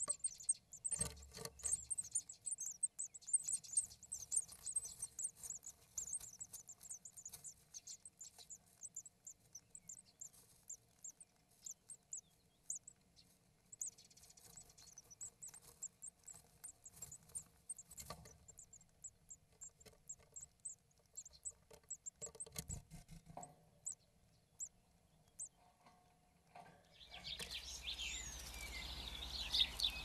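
Nestlings inside a nest box giving thin, very high-pitched begging cheeps in rapid trains, with soft scratching and rustling of the nest. About three seconds before the end it changes to outdoor ambience with birdsong.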